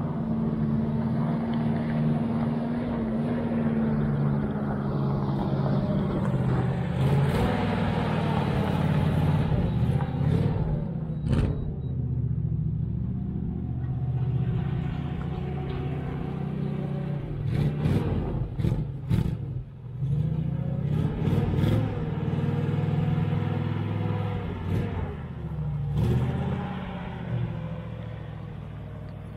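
An old pickup truck's engine running at low speed while it tows a dead crew-cab truck across gravel, with several knocks and clunks along the way. The engine sound fades near the end.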